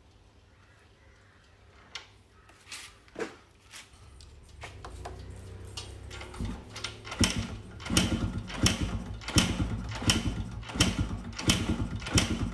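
Yamaha RX100's kick-start lever pumped repeatedly by foot, turning the engine over: a run of about eight regular strokes, a little under a second apart, in the second half, each with a clatter of the kick-start mechanism. The pumping pushes the last gearbox oil out of the open drain hole. A few light clicks come before it.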